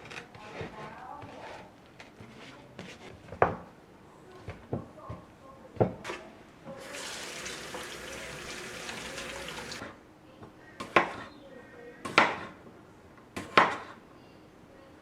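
Kitchen sink tap running steadily for about three seconds in the middle. Several sharp knocks of kitchenware being handled come before and after it.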